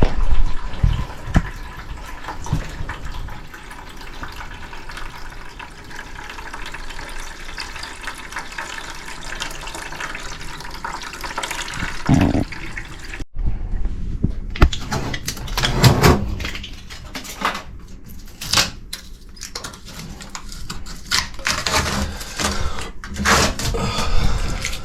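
A steady rush of running water for about twelve seconds, ending in a low thump. After a break, scattered knocks and clatter of hand work on the equipment follow.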